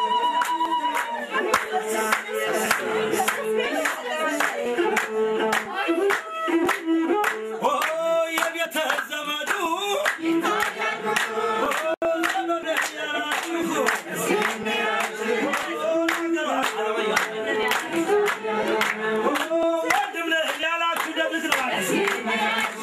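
A group of people singing together, with many hands clapping in a steady rhythm.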